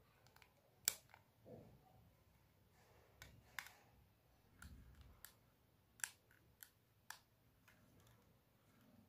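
Faint handling noise from a Zebronics webcam being turned over in gloved hands: a scattering of sharp, short plastic clicks from the camera body and its clear clip, the sharpest about a second in, with soft rustles between.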